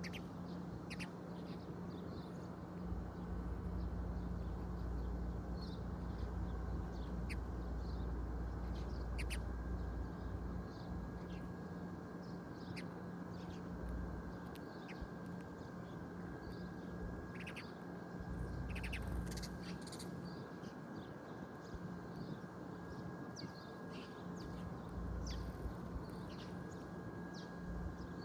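Outdoor countryside ambience: birds giving short, scattered chirps and calls over a steady background hiss, with a low rumble that swells and fades several times.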